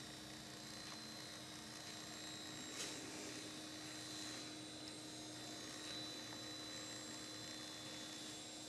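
Quiet steady electrical hum and hiss with faint high steady tones, with a single faint click about three seconds in.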